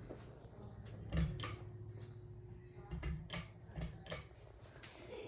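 Hunter Louden ceiling fan running with a low steady hum, with about seven sharp clicks and creaks scattered over the middle few seconds.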